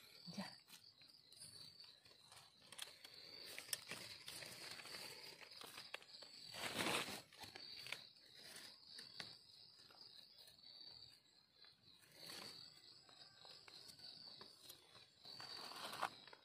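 Faint steady chirping of insects, with scattered rustles and scrapes of hands and a knife working soil and leaf litter to dig out and clean a mushroom. One louder rustling scrape comes about seven seconds in.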